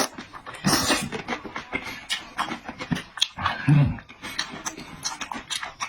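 Close-up eating sounds: chewing with many wet mouth smacks and clicks, a louder slurp about a second in, and a short low hum near four seconds.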